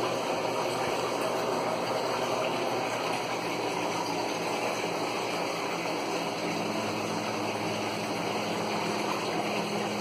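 Electrolux LT15F top-loading washing machine running water into its tub: a steady rushing of water with a low hum underneath.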